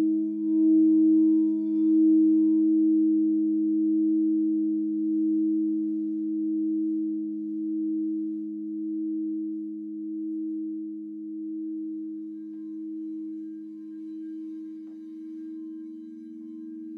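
Frosted crystal singing bowls ringing: two steady low tones about a fifth apart sound together, pulsing in a slow waver about once a second and slowly fading.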